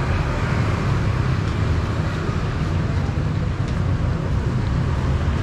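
Steady street ambience of road traffic, motorbikes and cars passing on the road beside the sidewalk, with a continuous low rumble.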